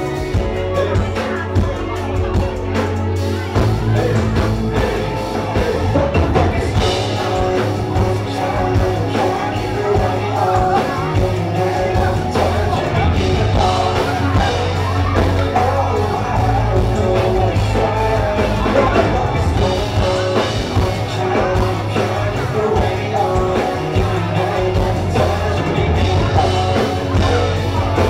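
A band playing a rock-style song with a singer, over a steady beat and heavy bass.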